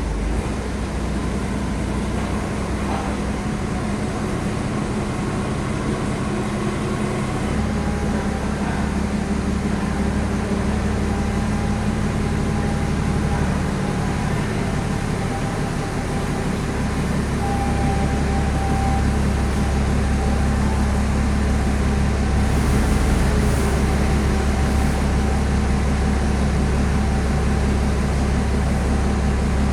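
Heavy truck engine running steadily under load, with road noise; its low drone steps to a different pitch a few times.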